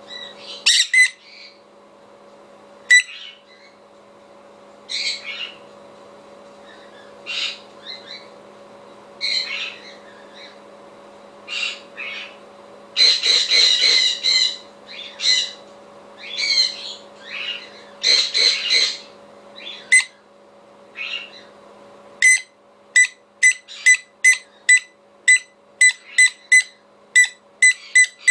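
Jenday conure screaming in answer to a recording of another conure's screams: loud, sharp calls, some single and some in short runs, ending in a regular series of short screeches about two a second.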